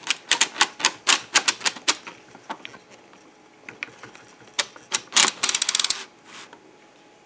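3D-printed Legare-style circular sock knitting machine being cranked round: a clatter of sharp clicks from the needles in the plastic cylinder as the yarn carrier passes over them, about five or six a second at first, thinning out, then a fast run of clicks about five seconds in.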